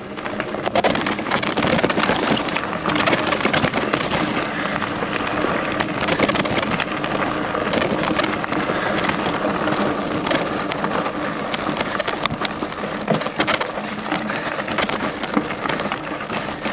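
Loaded bikepacking bike rolling down a rough, stony track: tyres crunching over gravel and the bike rattling, a continuous crackle full of small knocks.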